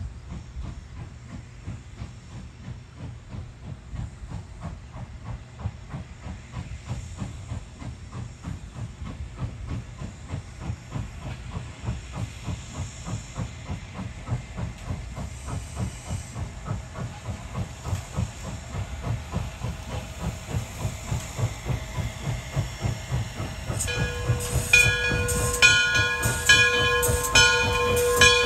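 Frisco 1630, a 2-8-0 steam locomotive, working a passenger train with a steady rhythm of exhaust chuffs that grows louder as it approaches. About four seconds before the end it passes close: the chuffs turn sharp and loud, and a steady ringing tone comes in with them.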